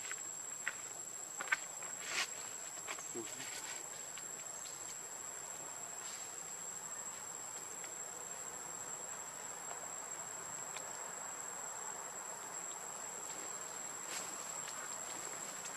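Forest insects keeping up one steady, high-pitched drone, with a few short clicks in the first three seconds and another near the end.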